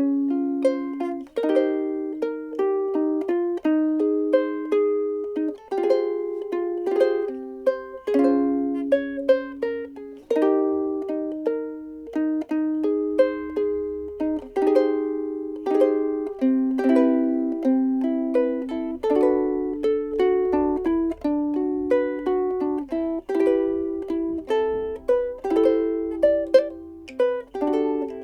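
Frayns FRUK-5MS soprano ukulele with a solid Honduran mahogany body, played solo: a steady run of plucked melody notes and chords, each note ringing and fading before the next.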